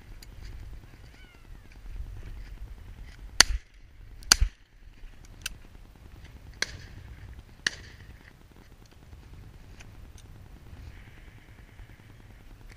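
Two loud shotgun shots about a second apart, both barrels of a double-barrelled shotgun fired in quick succession, about three and a half seconds in. A few fainter sharp cracks follow over the next few seconds.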